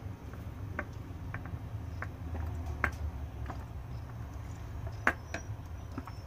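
A person sipping a smoothie through a straw: scattered small mouth clicks and swallows, the sharpest about five seconds in, over a low steady hum.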